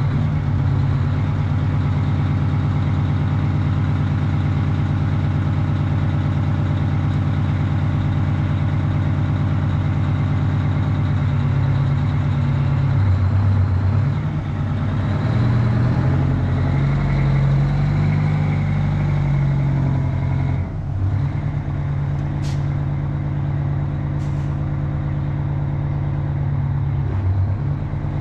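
Diesel engine of a semi tractor running as the truck moves off, its note shifting up and down as it revs. About two-thirds of the way through come two short, sharp hisses.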